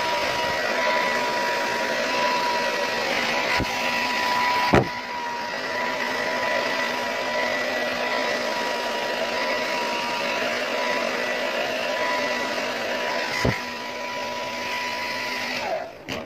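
Handheld hair dryer blowing steadily, with a high whine over the rush of air. Near the end it is switched off and the whine drops as it winds down. A few sharp knocks come through, the loudest about five seconds in.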